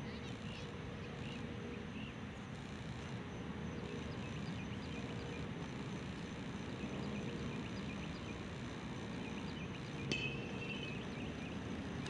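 Distant low, steady rumble of a Boeing 757's jet engines as the airliner passes on approach, with many short bird chirps over it. A brief click with a short high tone sounds about ten seconds in.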